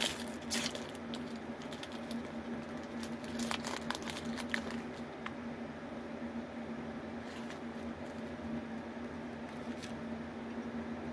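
Plastic wrapper of a Reese's peanut butter cup crinkling and tearing as it is opened, in bursts near the start and again around four seconds in, over a steady low hum.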